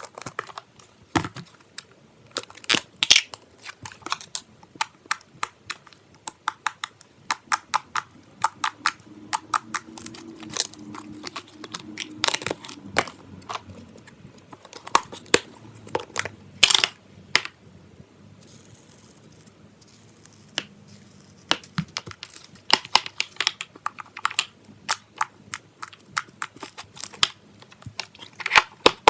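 Slime being squished and poked by hand, giving a run of irregular sharp pops and clicks, with a quieter stretch partway through.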